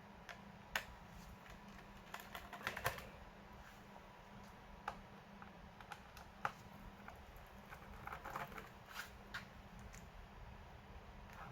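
Scattered light clicks and taps of a laptop's plastic case and small parts being handled during a hard-drive-to-SSD swap. Small clusters of clicking come about two seconds in and again about eight seconds in, over a steady low hum.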